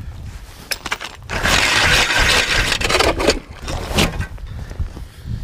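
Crunching, scraping noise of footsteps through snow, with scattered clicks, densest for about two seconds in the middle.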